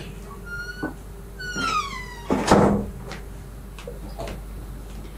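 A short high squeak, then a longer squeak falling in pitch, followed by a thud and a few light knocks.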